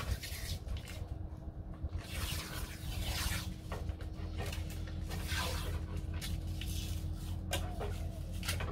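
Masking tape being pulled off the roll in several rasping rips and pressed onto a car's front guard, over a steady low hum.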